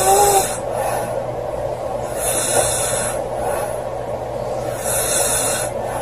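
A girl snoring, with a hissing breath about every two and a half to three seconds, three times, over a steady low hum.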